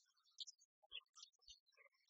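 Near silence, with faint scattered clicks and short blips.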